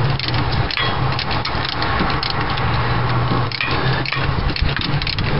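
Hand ratchet clicking in quick, uneven strokes as the fuel pump mounting bolts are worked loose, over a steady low hum.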